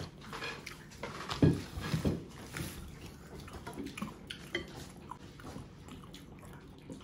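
Eating sounds at a meal of rice and curry: wet chewing and mouth smacking, with scattered small clicks and knocks of plates and utensils.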